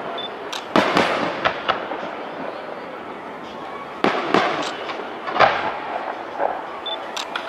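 Aerial fireworks shells bursting, a series of sharp bangs in two clusters, about a second in and again about four seconds in. Each cluster trails off into a decaying rumble, and a few lighter pops come near the end.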